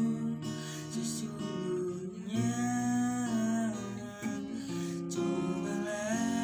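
A voice singing a slow Indonesian ballad in long, drawn-out notes, with acoustic guitar chords underneath.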